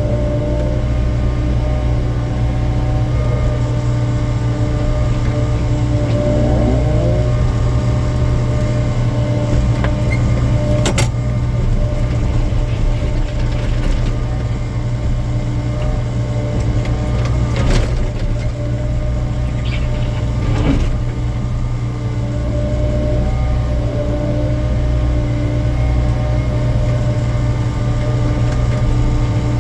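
Excavator diesel engine running steadily under load, with hydraulic whine rising and falling as the bucket works, and a few sharp knocks of concrete waste striking metal.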